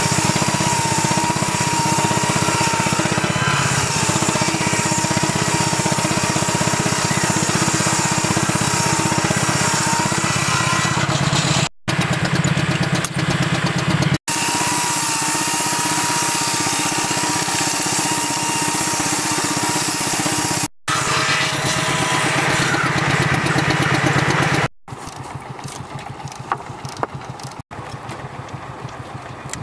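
Portable circular sawmill driven by a flat belt from a steam traction engine, running with a steady, loud mechanical noise and a high whine that wavers in pitch. The sound breaks off sharply several times and is quieter for the last few seconds.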